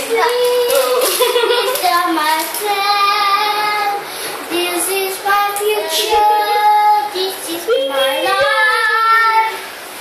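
A child singing a melody unaccompanied, holding long notes that step up and down in pitch, with a short pause near the end.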